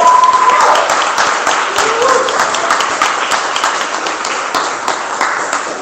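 Audience applauding with many overlapping claps, while a few voices call out near the start and again about two seconds in; the clapping thins slightly toward the end.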